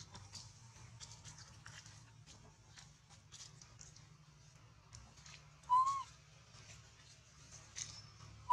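Baby macaque giving a short whistle-like coo about six seconds in, its pitch rising then falling, with a second rising coo at the very end.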